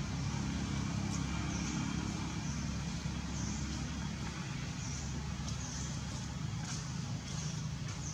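Steady low rumble of a running engine, with a high buzz pulsing a little faster than once a second.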